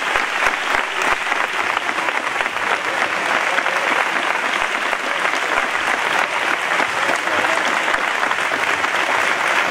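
A large crowd applauding, dense steady clapping with no let-up.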